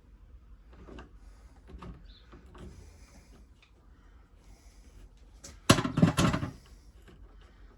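RV refrigerator door being worked loose and taken off: light knocks and handling clicks, then a short, loud clatter about six seconds in as the door comes free.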